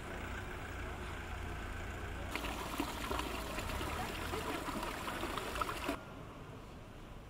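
Water trickling and splashing. It starts suddenly about two seconds in and cuts off about six seconds in, over a steady low rumble.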